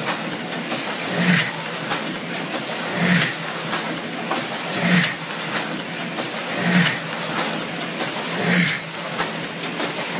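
Heidelberg KSBA cylinder letterpress running, with a hissing burst and a low thump about every two seconds, five times, over a steady mechanical run. Each cycle is one sheet being fed, printed and delivered.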